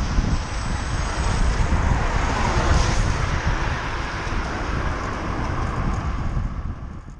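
Wind rushing over a moving bicycle camera's microphone, mixed with road traffic noise; the traffic sound swells about two to three seconds in.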